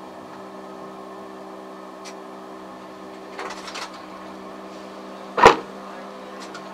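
Steady low hum inside a car's cabin as picked up by a dashcam, with a short rough noise around three and a half seconds in. A single loud bang about five and a half seconds in is the loudest sound, an impact.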